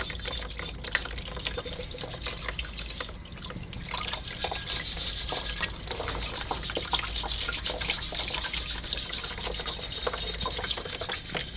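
Rusty parts of an old clothes iron being scrubbed and rinsed with water, with running water, rubbing strokes and many small clicks and knocks of metal.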